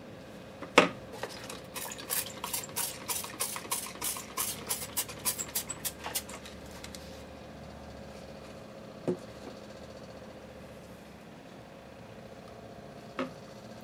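Spatula hand-stirring soap batter in a container, scraping in quick regular strokes about three or four times a second for some six seconds. It starts after a sharp knock and is followed by a couple of light knocks.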